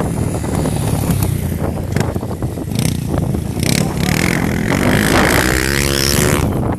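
Single-cylinder four-stroke trail motorcycle engine running; its engine note comes through more clearly from about five seconds in.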